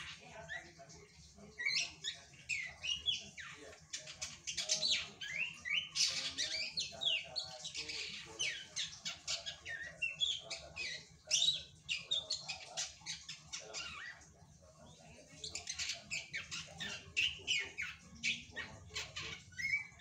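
Juvenile drongo singing: quick, dense runs of sharp chirps and gliding whistles, with a short pause about fourteen seconds in.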